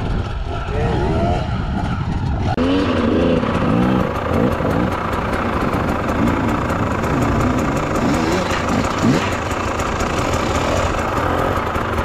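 Off-road dirt bike engines: one running steadily close by while others are revved in repeated rising-and-falling blips as the bikes climb rough ground.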